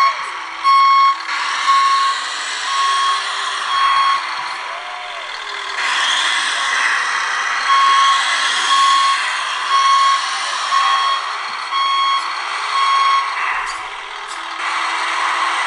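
Scale RC Volvo L250G wheel loader model reversing: its backup alarm beeps about once a second in two runs with a pause of a few seconds between them, over the steady whir of its motors and hydraulics, with short rising and falling whines.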